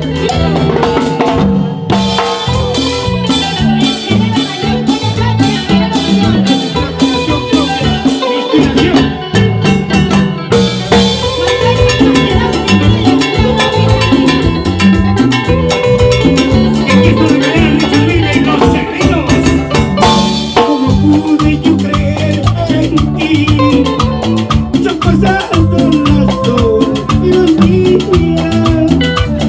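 Live band playing an instrumental passage of Latin dance music, with a steady drum and percussion rhythm under pitched melody instruments.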